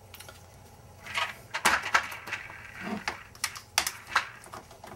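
Pistols being shifted and set into a foam-lined portable steel gun safe: rustling and scraping, then several sharp clicks and knocks.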